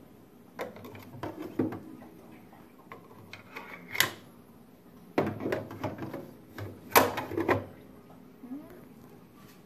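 Metal parts in a cryostat's cutting chamber being handled by hand: a string of irregular knocks, clicks and clatters as pieces are set down and shifted, the sharpest about four seconds in and again at about seven seconds.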